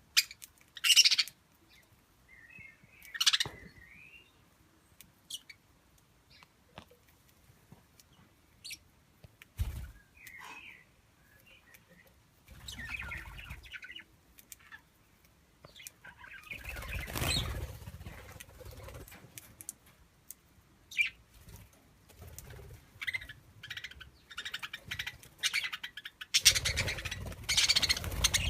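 Budgerigars giving short, scattered chirps, with several bursts of wing flapping, the longest near the end.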